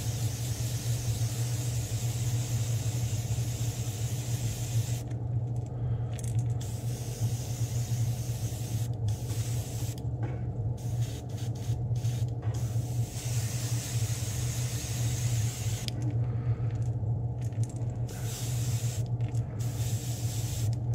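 Airbrush spraying paint onto a crankbait in repeated on-and-off strokes, its hiss cutting out for a second or two at a time several times, over a steady low motor hum.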